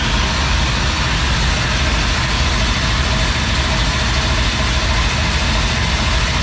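Dirt late model's newly installed carbureted crate V8 running steadily and loudly just after start-up, with a strong low exhaust beat.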